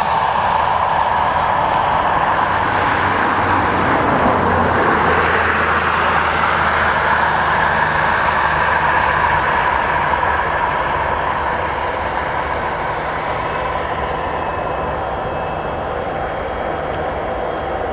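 Boeing 777's twin turbofan engines running at low taxi power as the airliner rolls towards the runway: a steady jet rumble and hiss with a low hum beneath, easing slightly after about ten seconds.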